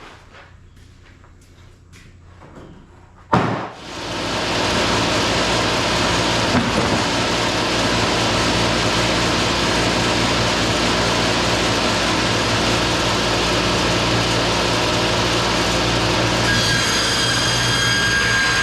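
Wood-Mizer LT35 band sawmill. After a few faint knocks, a sharp clunk comes about three seconds in. The mill then comes up to speed within a second and runs steadily and loudly, its band blade sawing black walnut. A thin high whine joins in near the end.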